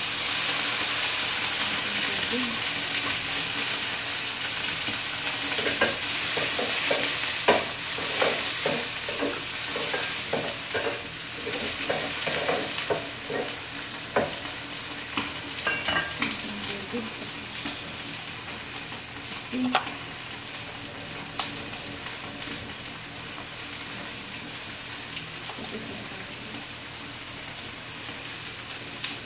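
Food sizzling in a hot oiled pan while being stirred. A spatula or spoon knocks and scrapes against the pan many times in the middle stretch. The sizzle is loudest near the start and slowly dies down.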